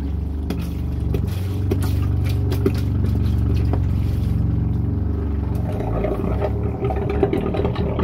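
Boat's electric shower sump pump running with a steady hum as it pumps out pink antifreeze, with the trickle and splash of antifreeze being poured into the shower drain. The hum changes about six seconds in.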